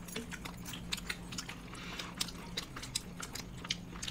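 People chewing and biting food, a run of small crisp clicks and crunches, over a faint steady hum.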